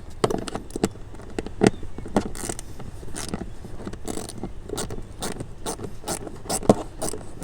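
Small socket ratchet clicking in irregular runs, a few clicks a second, as it backs out a 7 mm screw, with a couple of louder knocks among the clicks.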